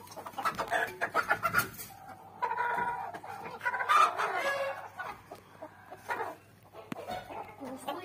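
Chickens clucking and squawking, with a long, loud call from about two and a half to four and a half seconds in.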